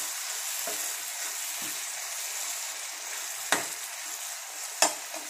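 Ridge-gourd pieces sizzling in a frying pan while a perforated spoon stirs them. The spoon knocks sharply against the pan twice in the second half.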